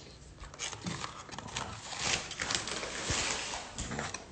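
Paper fast-food packaging rustling and crinkling as it is handled, with irregular light clicks and knocks from the phone being moved. The rustle is loudest from about two to three and a half seconds in.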